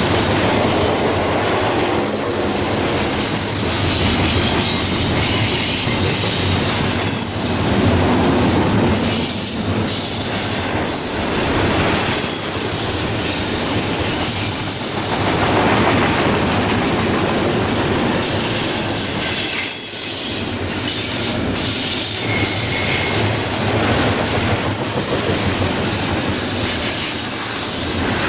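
A long freight train of double-stack intermodal cars rolling past, with wheels squealing high on the rails and knocks over rail joints.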